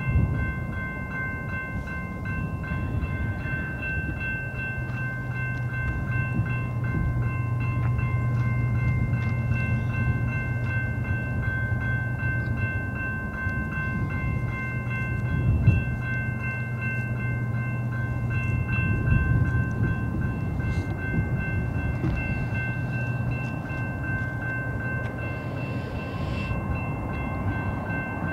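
Railroad grade-crossing warning bell ringing steadily in an even rhythm. Under it is the low, steady rumble of an approaching diesel freight train.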